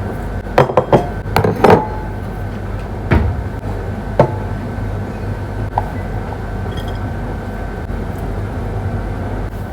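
Kitchen clatter of dishes and utensils as soup is served onto plates: a quick run of clinks and knocks in the first two seconds, then single knocks about three and four seconds in, over a steady hum of a clothes dryer running.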